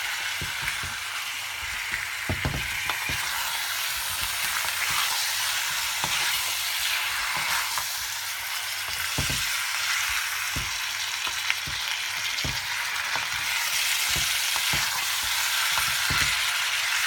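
Raw chicken pieces and sliced onions sizzling in oil in a wok on high heat, a steady frying hiss with irregular knocks and scrapes of a wooden spatula against the pan as they are stirred. The chicken is being sautéed so its own water cooks off.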